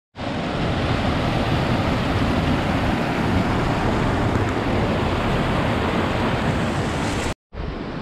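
Mountain stream rushing and splashing over boulders in a small cascade, a steady rush of water. It cuts out briefly near the end and resumes a little quieter.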